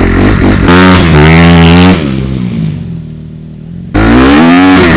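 2016 Honda CRF250R's single-cylinder four-stroke engine revving loudly. The throttle is opened, the pitch rises for about a second, then the engine drops back and falls quieter for about two seconds. About four seconds in it is blipped again sharply.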